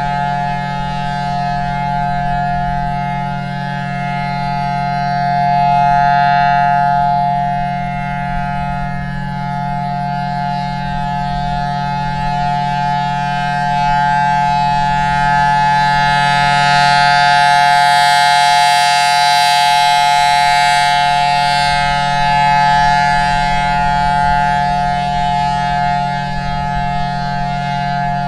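Federal Signal Thunderbolt 1000T blower-driven warning siren sounding a loud, steady chord at full speed. As its rotating horn sweeps around, the sound swells and fades slowly, over a steady low hum.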